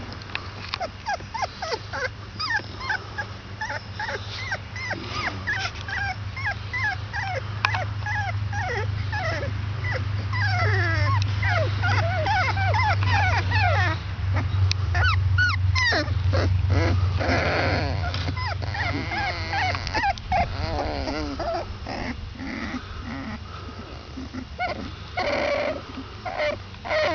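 A litter of 22-day-old basset hound puppies whimpering and squeaking: many short, high cries that slide down in pitch and overlap, busiest in the middle. A steady low hum runs underneath for most of it.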